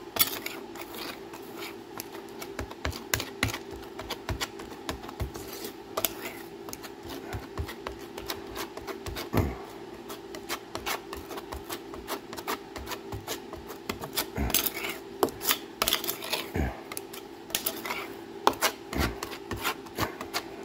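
A spreader scraping and smearing two-part Fusor 108B panel adhesive back and forth on a mixing board, mixing it: irregular scrapes and light clicks as the blade drags and lifts. A steady low hum runs underneath.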